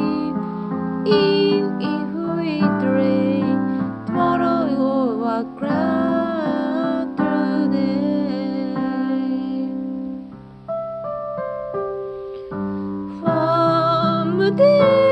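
A song with keyboard accompaniment: a sung melody over held piano chords, dropping out for a few seconds near the middle while the keyboard plays on, then returning near the end.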